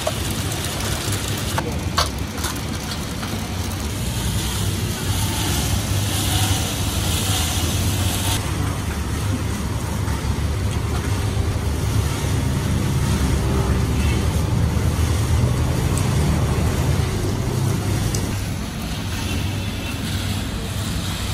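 Peanut roasting machine running: a steady low motor drone, with peanuts tumbling and rattling through its rotating drum.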